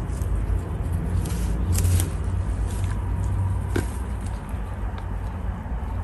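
Steady low background rumble, with light rustling and a few small clicks as hands dig among carrot foliage and soil in a plant pot.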